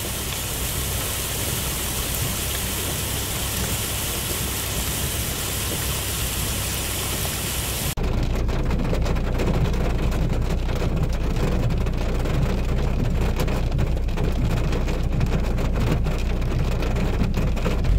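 Heavy rainwater pouring down concrete steps in a steady rushing hiss. About eight seconds in, it cuts to heavy rain heard from inside a car: a low rumble with dense ticking of drops on the glass and body.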